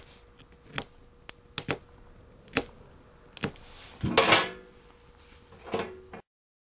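A handful of sharp, irregular clicks and knocks, with a louder, longer clatter about four seconds in and one more knock near the end, after which the sound cuts off.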